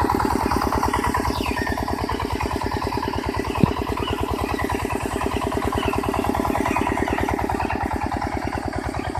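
Engine of a homemade jugaad cultivator running steadily with a fast, even chugging beat. There is one sharp click about three and a half seconds in.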